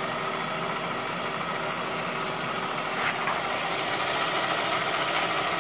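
Electric bicycle's rear hub motor spinning the wheel, a steady whirring hum that slowly grows a little louder.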